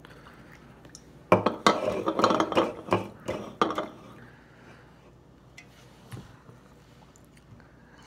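A quick run of loud knocks and clinks from aluminium drink cans and a drinking glass handled on a tabletop, lasting about two and a half seconds, then a couple of faint taps.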